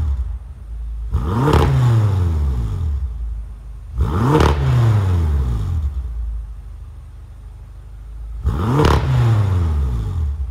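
2012 BMW M6's 4.4-litre twin-turbo V8 running cold through its stock exhaust, blipped three times: about a second in, about four seconds in and near the end. Each time the revs rise sharply and fall back to a steady idle.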